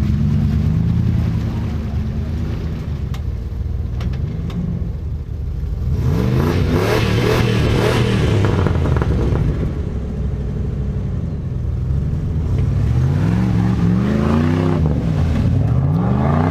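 Off-road 4x4's engine revving up and falling back again and again as it claws up a muddy slope, with the hardest revs about six seconds in and again near the end. A rush of noise comes with the first hard revs.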